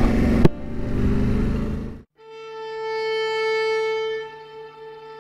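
Motorcycle riding noise, engine and wind, cuts off about two seconds in. Background music follows, opening on one long held note.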